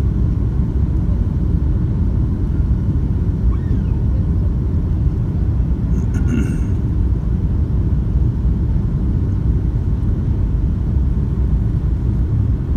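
Steady low rumble of an airliner in flight, heard inside the cabin: engine and airflow noise. A short, higher sound comes about six seconds in.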